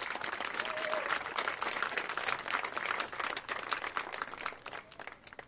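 Audience applauding, many hands clapping at once, dense at first and thinning out to a few claps near the end.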